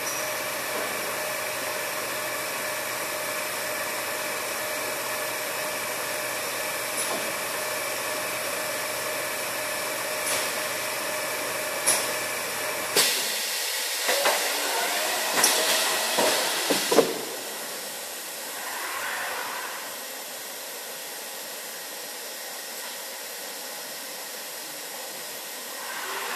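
Aluminium-profile machining line running with a steady hiss and several steady whining tones over a low hum. About halfway through the hum drops out and a quick run of sharp clicks and metallic knocks follows for a few seconds. After that a quieter steady hiss remains.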